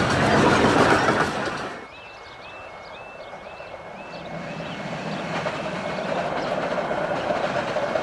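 A 15-inch-gauge miniature train running loudly past, wheels clattering over the rail joints, cut off suddenly about two seconds in. After the cut it is much quieter, with a short rising chirp repeated about twice a second for a few seconds, and train noise slowly building again towards the end.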